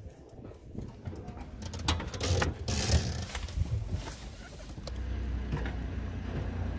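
Metal hooks and buckles of wheelchair tie-down straps clicking and rattling as they are released. A steady low hum starts about five seconds in.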